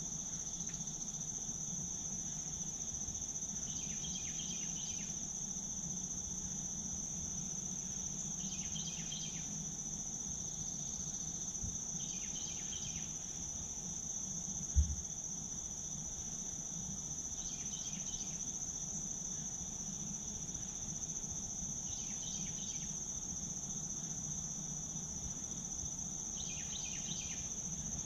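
Steady high-pitched trilling of insects in the woods, with a second, lower buzzy insect call repeating about every four to five seconds. A single low thump about halfway through.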